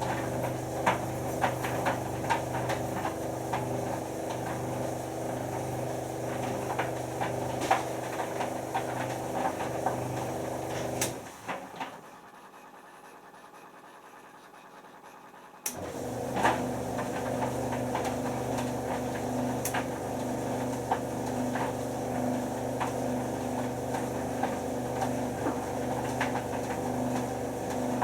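White Knight C44A7W vented tumble dryer running, its motor humming as the drum tumbles a load of towels with light knocks. About eleven seconds in the drum winds down and stops; after about four seconds the motor starts again, the reverse-tumble timer switching the drum's direction.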